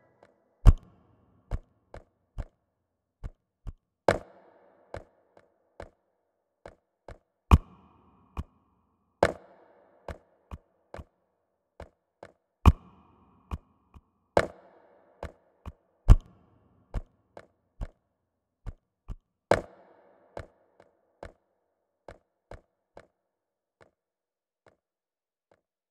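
Sharp, dry percussive knocks in a steady repeating rhythm: a louder accented hit about every three and a half seconds with lighter clicks between, some followed by a short ringing tail, growing fainter and dying away near the end.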